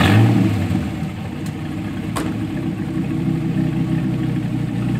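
Dodge Viper SRT-10's 8.3-litre V10 firing up with a brief flare in revs, then settling into a steady, deep idle.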